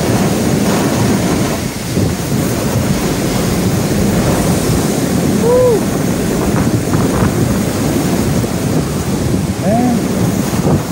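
Category 4 hurricane winds and wind-driven rain blasting past the vehicle in a loud, steady rush, with gusts buffeting the microphone. Two short rising-then-falling tones stand out, about halfway through and again near the end.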